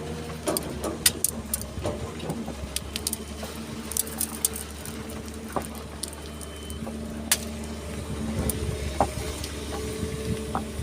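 Excavator's diesel engine running steadily and getting a little louder about eight seconds in, with scattered sharp clinks and rattles of stones and sand as the machine digs and loads.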